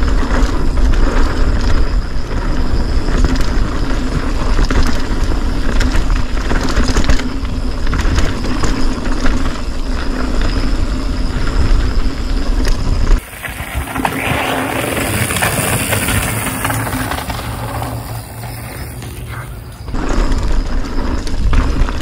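Polygon Siskiu full-suspension mountain bike ridden downhill on a dirt trail. Wind buffets the handlebar camera's microphone over tyre noise and the clatter and rattle of the bike over bumps. About thirteen seconds in the low rumble drops away suddenly and a smoother hiss takes over, until the rumble and rattles come back about twenty seconds in.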